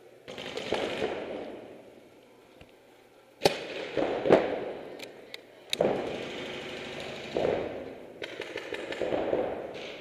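Paintball markers firing during a speedball game: several sharp cracks in the middle, among longer noisy, rattling stretches of fire and paint hitting bunkers.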